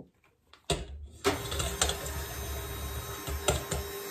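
Electric hand mixer with dough hooks starting up about a second in and running steadily at a constant pitch as it beats flour into sugar-and-yeast water for a bread batter, with a few sharp knocks.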